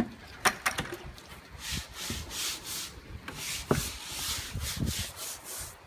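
Stiff-bristled brush scrubbing cleaner into a wet wood board in quick back-and-forth strokes, about three a second, starting a couple of seconds in after a few light knocks.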